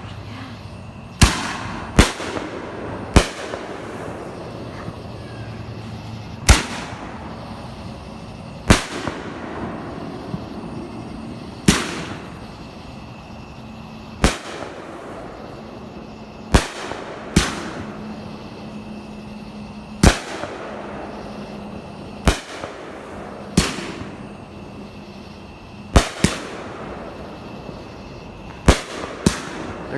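Aerial fireworks going off overhead: a string of sharp bangs every one to three seconds, about fifteen in all, with crackle and rumble between them.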